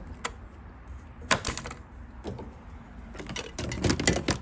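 Irregular sharp clicks and clatter of hard objects being handled: a single click early, a short cluster about a second in, and a denser run of clicks near the end.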